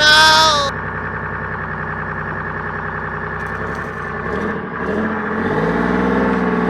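Vehicle engine running steadily, opening with a brief high tone that bends in pitch; about five seconds in a deeper engine note rises in pitch and then holds.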